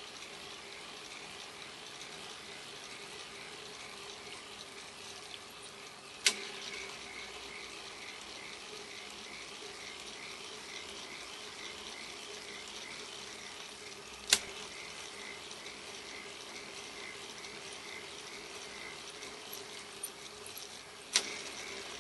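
K'nex plastic gear transmission running off its small electric motor: a steady whir and hum of plastic gears with a soft, regular ticking. Three sharp clacks, several seconds apart, are the loudest sounds, where the pendulum snaps the drive over into the opposite gear.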